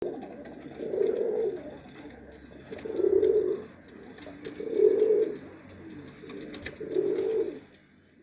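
Domestic pigeons cooing: four low coos, about two seconds apart, with faint clicks in the background.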